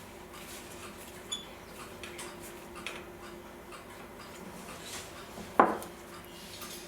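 Small brass and steel clock parts clicking and tapping together as they are fitted into a skeleton clock's time train: a few irregular light clicks, with one sharper knock about five and a half seconds in.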